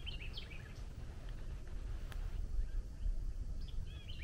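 A bird chirping in short, quick phrases, once near the start and again near the end, over a steady low outdoor rumble.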